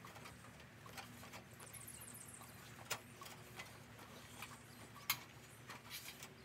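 Faint, irregular taps and clicks, the two sharpest about three and five seconds in, with a brief high chirping trill about two seconds in.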